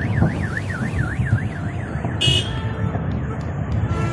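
Car alarm warbling up and down about three to four times a second, stopping just before two seconds in, over a steady low rumble. A brief high-pitched blare follows a moment after the alarm stops.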